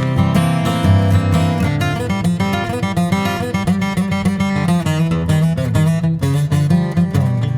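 Yamaha FG9 Mahogany dreadnought acoustic guitar, with a solid Adirondack spruce top and African mahogany back and sides, flatpicked in bluegrass style. Quick runs of picked notes mix with strummed chords over ringing bass notes.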